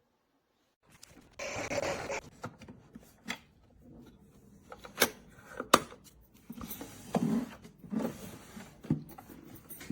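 Handling noise: a rustling rub, then two sharp clicks and several softer knocks.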